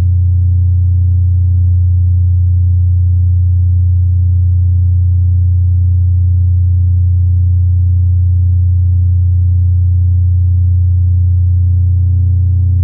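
Ambient drone: one deep, steady tone with fainter overtones above it, unchanging in pitch and loudness.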